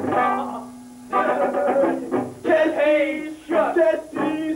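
A male rock vocalist singing into a microphone in short phrases with long held notes, backed by an electric guitar: a small rock band playing live.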